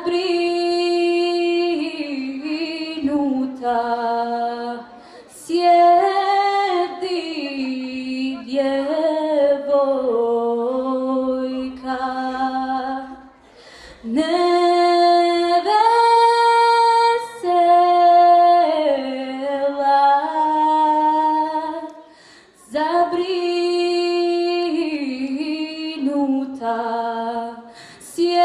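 A girl singing solo and unaccompanied into a handheld microphone, in long held phrases that glide up and down in pitch. She breaks off for breath about five, thirteen and twenty-two seconds in.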